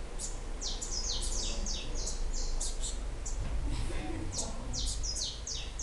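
Saffron finches calling: many short, high chirps, each sliding downward, in quick clusters that pause briefly about halfway through.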